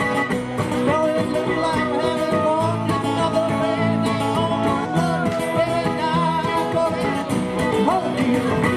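Live band playing a country-bluegrass song, with guitars and a melodic lead line and no sung words.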